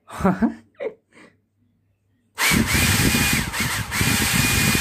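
Small DC motor and fan from a Nova NHP-8100 hair dryer, run on a 42 V DC supply, spinning up at high speed about two seconds in: a high whine over a loud rush of air. The whine dips briefly, then holds steady.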